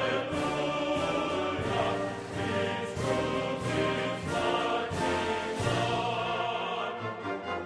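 Background music: choir singing over an orchestra, in a classical or operatic style.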